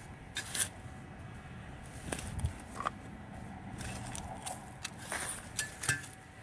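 Digging tool scraping and crunching through soil and roots, with a string of sharp clicks and scrapes, the loudest about half a second in.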